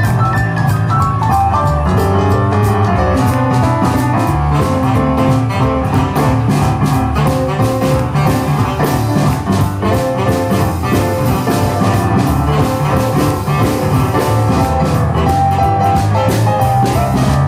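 Jump-blues band playing a boogie live, an instrumental passage with a steady drum-kit beat, upright bass, piano and electric guitar.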